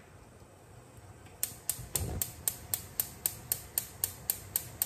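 Gas hob's spark igniter clicking steadily, about four clicks a second for some three seconds while the burner under the pan is lit, with a low thump about two seconds in.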